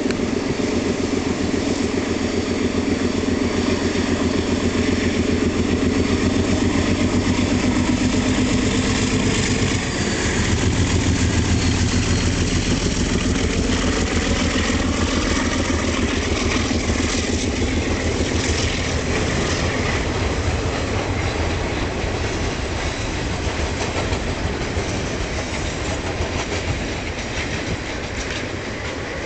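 MLW RS-18 diesel locomotive, with a turbocharged ALCO 251 V12 engine, running under load as it approaches and passes, loudest about ten seconds in. The engine then fades as the freight cars roll by, clicking over the rail joints.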